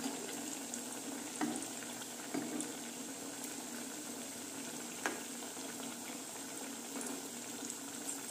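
Thekua dough cookies deep-frying in hot oil in a pan: a steady bubbling sizzle. A few light clicks of a spatula against the pan come near the start, at about one and a half and two and a half seconds, and again about five seconds in.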